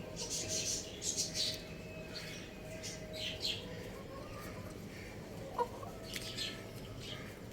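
Young rooster chirping and clucking in short, scattered calls, with a sharper cluck about five and a half seconds in. A faint steady hum runs underneath through the first half.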